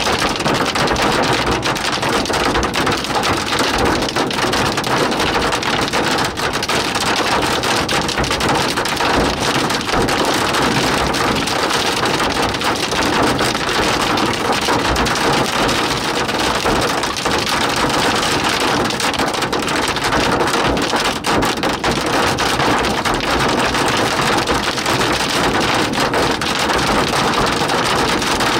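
Torrential rain mixed with hail hitting a car's roof and windshield, heard from inside the car: a loud, dense, unbroken patter of countless impacts.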